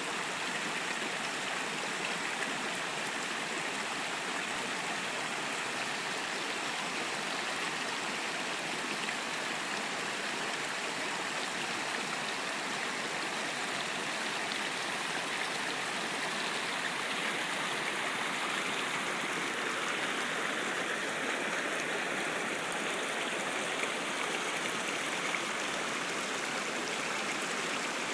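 Small mountain stream running shallow over rocks, a steady rush and splash of water.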